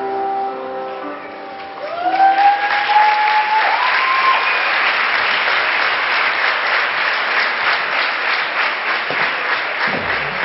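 Audience applause breaking out about two seconds in as the music ends on held notes, with a long rising cheer from the crowd over the clapping. A new piece of music with a beat starts near the end.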